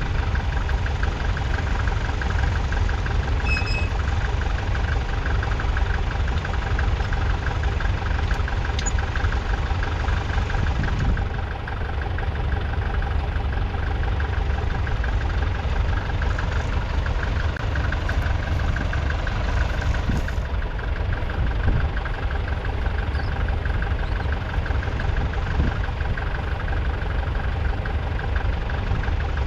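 Massey Ferguson 65 tractor's 3.3-litre four-cylinder diesel engine running steadily, with a fast, even pulse.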